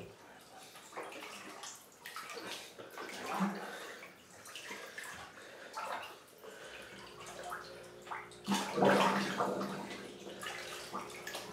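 Bathwater sloshing and splashing as a fully clothed person shifts about and sits up in a filled bathtub, with a louder splash about three-quarters of the way in.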